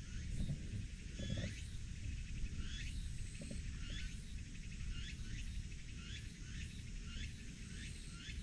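Outdoor ambience of short, high, rising chirps from an unseen animal, repeated irregularly about twice a second, over a steady low rumble.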